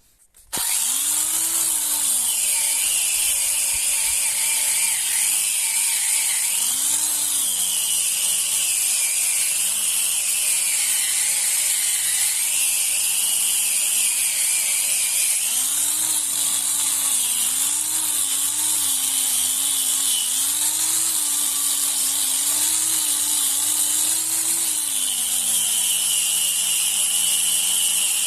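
Handheld electric power tool running continuously against rusty metal, its motor pitch sagging and recovering again and again as it is pressed into the work, over a steady high hiss.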